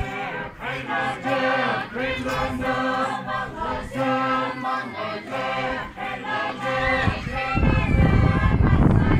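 A group of voices chanting together in unison for a traditional dance, holding long sustained notes. About 7.5 seconds in, the chant is covered by a loud, low rushing noise.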